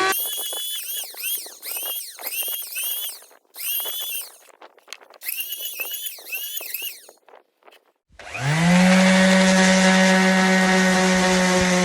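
Electric power tool running in short bursts, its high whine rising and falling about twice a second. About eight seconds in, a motor spins up quickly to a steady, loud, even hum.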